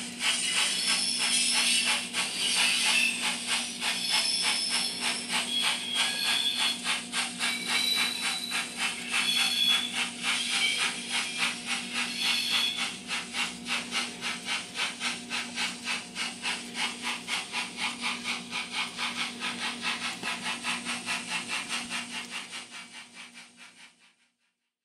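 Steam locomotive sound from a LokSound Micro v4 decoder in an N scale 4-6-2 Pacific: a steady rhythm of hissing exhaust chuffs over a constant low hum, with short high squeals in the first half. The sound fades away near the end.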